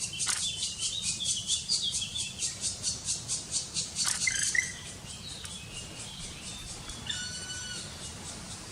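Black woodpecker nestlings begging at the nest: a rapid, rhythmic chorus of high, buzzy calls, several a second, that breaks off abruptly about halfway through as they are fed. Near the end comes a single short call held on one steady pitch.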